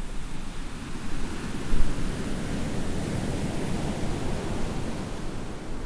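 Ocean surf breaking and washing up on a sandy beach, a steady rushing noise that swells a little under two seconds in.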